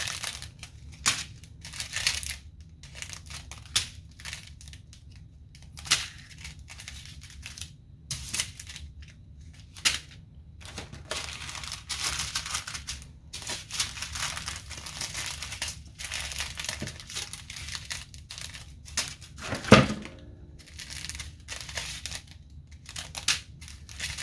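Small plastic bags of diamond-painting drills being handled and sorted, in short, irregular rustles, with one sharper knock about twenty seconds in.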